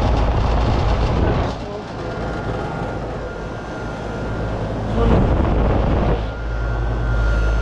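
Outdoor air-conditioning condensing units running: a steady low compressor hum under the rush of the condenser fans, growing louder for stretches.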